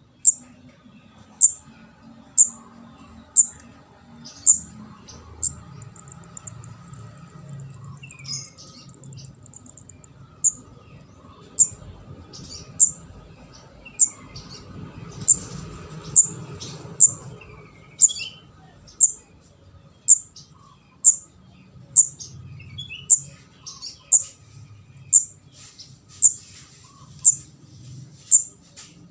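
Juvenile orange-headed thrush (kemade) calling: short, very high notes that drop sharply in pitch, repeated about once a second, with a few fainter lower chirps between them.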